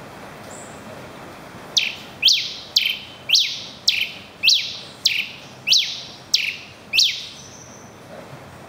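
Red pileated finch (tico-tico-rei) singing. Its song is a run of about ten loud notes that each slide steeply down in pitch, about two a second, starting about two seconds in.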